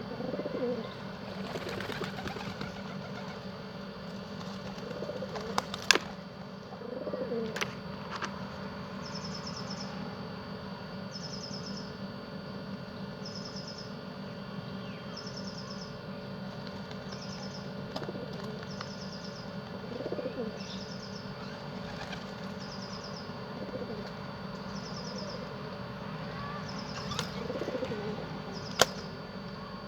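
Pigeons cooing now and then, with wing flapping and a few sharp clicks. A short high chirp repeats about every two seconds.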